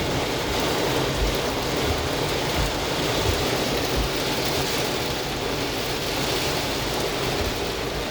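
Heavy rain and gusting storm wind, a steady dense rush broken by irregular low thumps.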